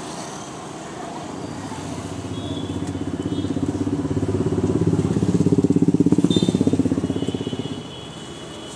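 A motorcycle engine running close by: it gets louder over several seconds, is loudest a little past the middle, then falls away sharply near the end, over road traffic noise.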